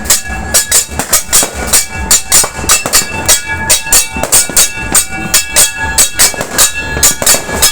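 Metal being banged hard and fast, about four loud strikes a second, each hit leaving a ringing metallic tone: New Year's noise-making.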